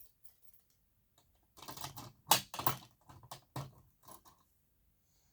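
Handling noise on a fire alarm board: a run of irregular clicks and light knocks lasting about three seconds, starting about one and a half seconds in.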